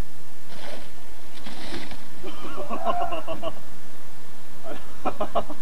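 Indistinct voices without clear words, over a steady low rumble on the microphone, with two short hissing noises about half a second and a second and a half in.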